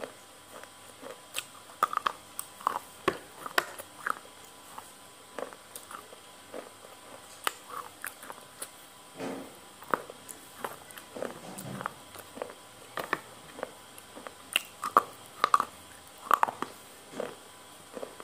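Close-miked mouth sounds of someone chewing noodles: irregular wet smacks and clicks of lips and tongue, with a few longer squelching chews partway through.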